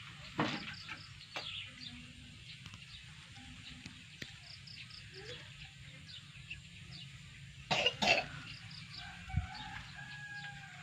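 Two quick coughs close together about eight seconds in, with chickens clucking faintly in the background.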